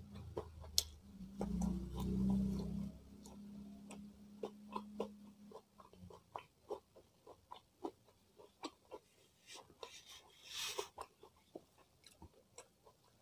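Close-miked chewing with many sharp, wet mouth clicks, one or two a second. A low steady hum fills the first few seconds, and a short crunchy burst comes near the end.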